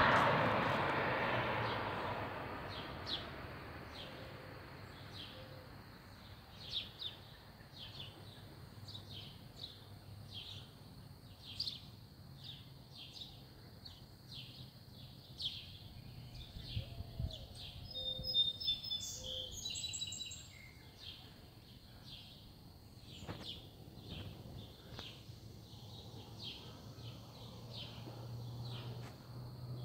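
A low-flying airplane's engine noise fading away over the first few seconds as it recedes. Then birds chirping, with short, high chirps repeating every second or so against a quiet rural background.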